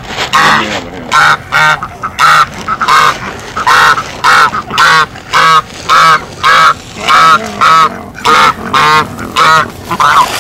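White domestic goose honking, a rapid run of loud honks about two a second.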